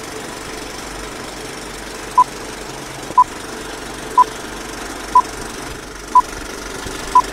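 Film-leader countdown sound effect: short, identical high beeps once a second, six of them starting about two seconds in, over a steady film-projector clatter and whir.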